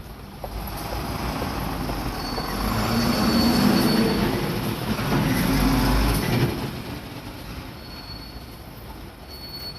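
A Seibu Shinjuku Line electric commuter train passing over the level crossing, its rumble building to a peak in the middle and fading away toward the end. A thin, high wheel squeal sounds through the loudest part.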